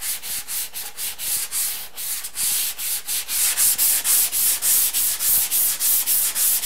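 A 220-grit sanding sponge is rubbed by hand over dried drywall joint compound in an inside corner. It makes a scratchy hiss in quick back-and-forth strokes, about three a second, which get louder and more regular after about two seconds.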